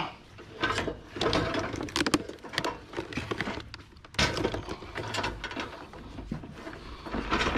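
Clattering and knocking of hard items being moved and loaded, in several irregular bursts with sharp clicks.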